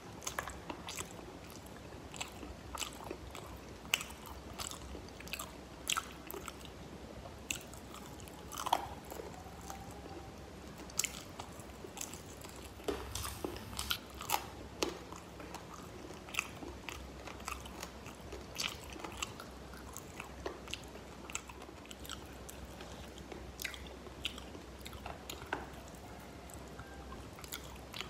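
Close-miked biting and chewing of crispy fried chicken wings: irregular crunches and small crackles of the fried coating, with softer mouth sounds in between.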